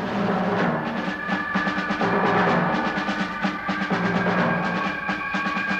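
Orchestral background music with drums and timpani: held chords under a busy run of drum strokes.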